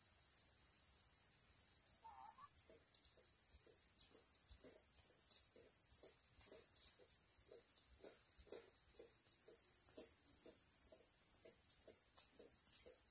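Crickets chirping in a steady high-pitched chorus, with a soft regular knocking about three times a second that starts a couple of seconds in.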